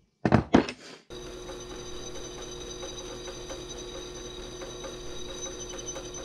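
Two hammer blows on a punch, marking hole positions in an aluminium angle bracket. About a second in, a benchtop drill press takes over, running steadily with a constant motor hum and a high whine as it drills through the aluminium.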